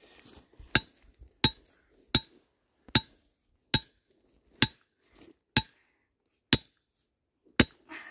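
Hammer striking the head of a steel trap stake, driving it into hard clay ground: nine sharp metallic clinks, a little under one a second, spaced slightly further apart towards the end.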